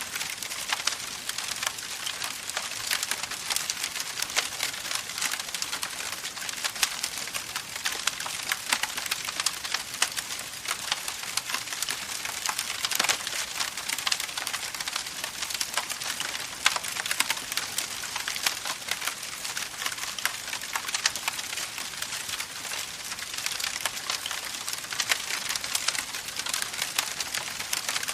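Campfire burning with a steady, dense crackle of small snaps.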